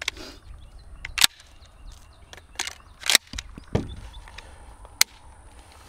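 Adler Arms HT108T 12-gauge pump shotgun's action: a handful of sharp metallic clicks and clacks from the pump being worked and the hammer dropping, with no shot going off. These are the misfires from light primer strikes that the gun keeps giving.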